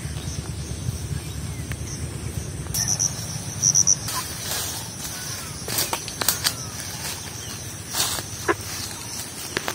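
Insects, cricket-like, trilling steadily and high-pitched, with a louder pulsed chirping about three to four seconds in. In the second half, short crackles of feet and hands moving through grass and leafy undergrowth.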